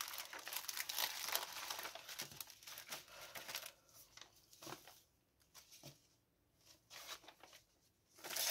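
Clear plastic packaging crinkling as iron-on transfer sheets are handled and slid back into their sleeve. Steady crinkling for the first few seconds, then a few short rustles with quieter gaps between.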